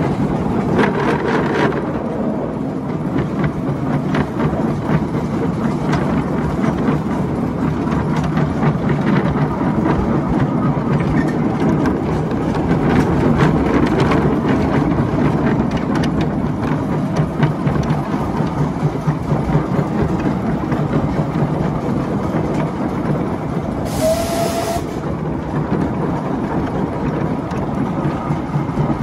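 Miniature railway train running along the track, heard from an open passenger car: a steady rumble with continuous rattling clatter of wheels and carriages. A few seconds before the end there is a brief high hiss with a short tone.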